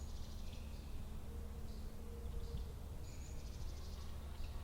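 Faint bird calls and high trills in woodland, twice, over a steady low rumble.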